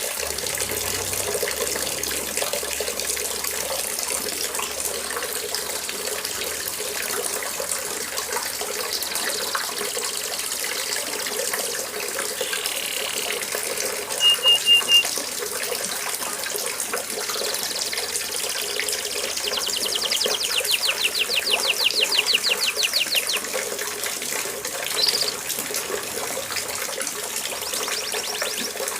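Steady rain falling in an even hiss, with a canary singing over it: a few short high notes about halfway through, then a long rapid trill and a brief chirp after it.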